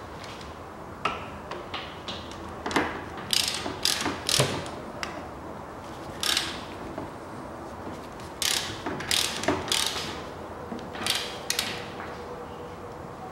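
Ratchet wrench on a long extension with a universal joint, clicking in short irregular bursts as it tightens the steering rack's mounting bolts.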